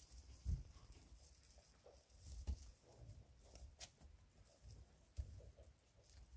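Faint rustling in straw bedding with scattered soft knocks and a few sharp clicks, from rabbits moving about a hutch and a young rabbit eating mixed grain from a bowl.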